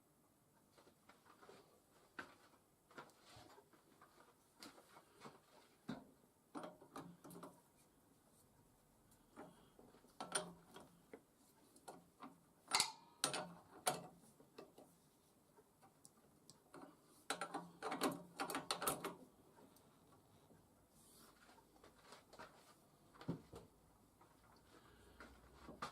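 Faint, irregular clicks and knocks of hard objects being handled, sparse at first and bunched in two busier spells in the middle.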